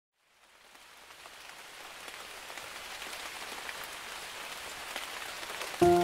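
Steady rain falling with a fine patter of drops, fading in from silence over the first second or two. Music starts abruptly just before the end.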